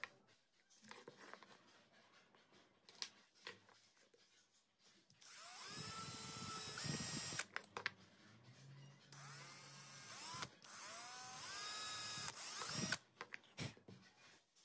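Electric drill boring a small hole into a wooden frame in two runs of a few seconds each. At the start of each run the motor whine rises in pitch as it spins up, then holds steady. A few light clicks of handling come before the first run.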